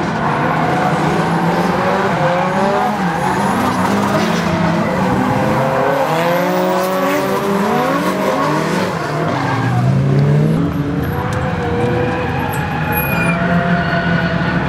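Several drift cars' engines revving hard, their pitches rising and falling over one another, with tyres skidding and squealing as the cars slide sideways together.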